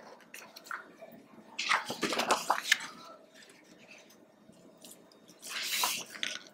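Pages of a large glossy photobook being turned by hand: a papery swish about two seconds in and a shorter, sharper one near the end, with light rubbing of hands on the paper between.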